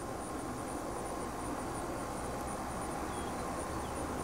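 Insects chirring steadily in a high, finely pulsing drone over a steady outdoor hiss; no shot or other sudden sound.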